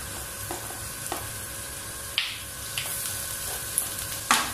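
Chopped capsicum and onion frying in oil in an aluminium kadai, stirred with a wooden spatula that scrapes and knocks against the pan now and then. A sharp knock about four seconds in.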